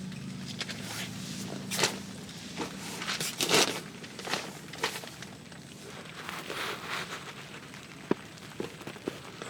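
Irregular rustling, crinkling and scuffing with a few sharp knocks: someone moving about and handling camping gear.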